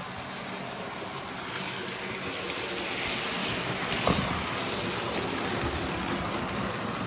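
Model railway trains running on the track: a steady whirring, rattling rumble of wheels and motors that grows louder as a train passes close by, with one sharp click about four seconds in.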